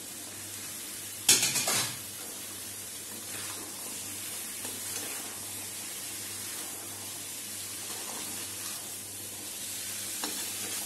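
Steady sizzle of masala frying in a steel kadai as boiled chickpeas are tipped in and stirred with a slotted steel spatula. About a second in, a short, loud clatter of steel against the pan.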